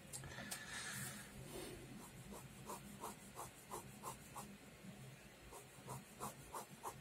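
Pen scratching on paper while sketching: one longer drawn stroke, then two quick runs of short, evenly spaced strokes, about three a second.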